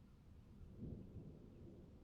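Faint low rumble of distant thunder, swelling briefly about a second in.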